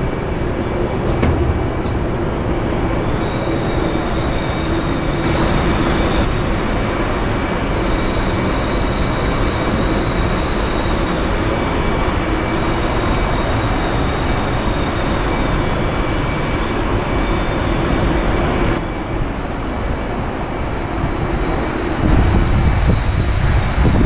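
Steady industrial drone of running machinery, carrying a couple of constant high whining tones. Low wind rumble on the microphone comes in near the end.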